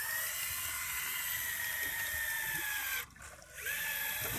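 A fishing reel winding in line from depth: a steady whirr with a faint whine that sinks slightly in pitch. It stops briefly about three seconds in, then starts again.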